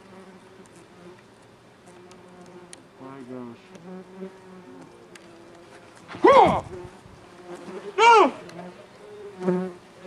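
Bees buzzing around a hive in an old wooden crate: a faint steady hum, with two loud buzzes about six and eight seconds in that rise and fall in pitch as bees fly close past the microphone.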